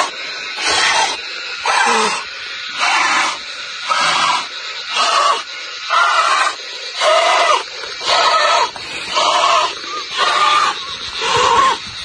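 A person blowing hard by mouth into the valve of an inflatable air mattress, about one blast of breath a second, each loud and rough with a quieter breath drawn in between. He is inflating it by lung because the pump's hose is split.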